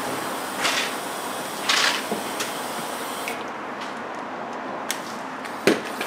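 Work on the skid plate under a car on a lift: two short hissing bursts, then a light click and a sharper knock near the end, over a steady hiss.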